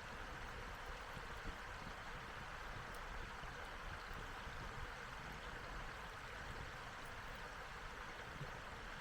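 Wood fire burning with a steady hiss and a few faint crackles, under a low rumble of wind.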